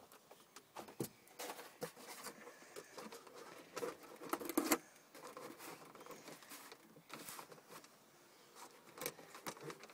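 Hands handling and fitting cardboard model parts together: irregular light taps, scrapes and rustles, with a few louder knocks about four to five seconds in.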